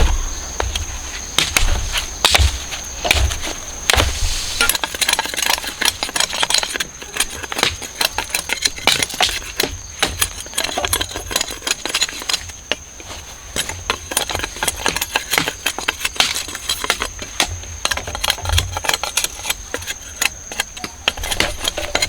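Sugar cane being chopped and handled: repeated knocks and cuts with a running crackle of dry cane stalks and leaves, the heaviest blows in the first few seconds.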